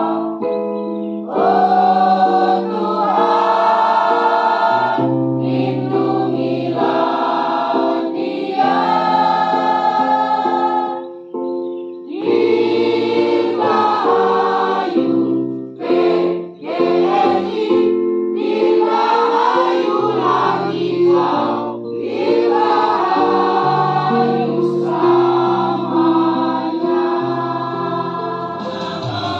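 Mixed choir of men's and women's voices singing a song in parts, with long held notes and short breaths between phrases.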